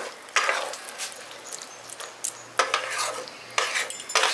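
A utensil scraping against the pan in a few irregular strokes, stirring soya chunk Manchurian in its cornflour-thickened sauce, with a light sizzle underneath.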